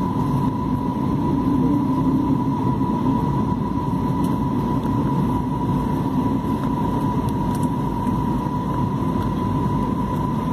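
Steady cabin noise of an Airbus A320-family jet airliner on approach, heard from a window seat: an even low rumble of engines and airflow with a thin, steady whine above it.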